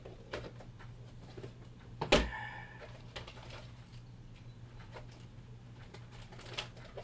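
Handling noise from bundles of firework initiators being picked up and sorted: scattered light clicks and rustles, with one sharp knock about two seconds in that rings briefly with a squeaky tone. A steady low hum runs underneath.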